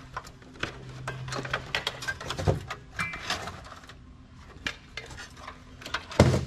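Metal parts of an old desktop computer clinking and knocking as it is taken apart by hand, a string of small clicks and taps with one louder clank near the end.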